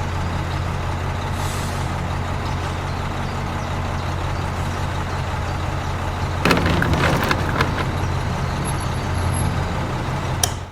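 A motor running steadily with a low hum, with a burst of rattling about six and a half seconds in; it cuts off suddenly at the end.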